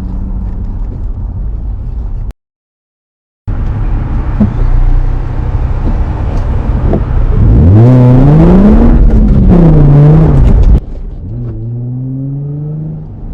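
Nissan 350Z's V6 engine running, then, after a break, revving hard with the pitch climbing and then falling over about three seconds. Near the end it drops back to a quieter engine note that rises steadily.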